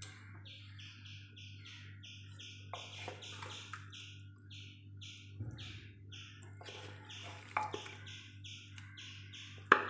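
A bird chirping over and over, short chirps at about three to four a second, over a steady low hum. A few knocks and scrapes of a utensil on the pan break in, the loudest near the end.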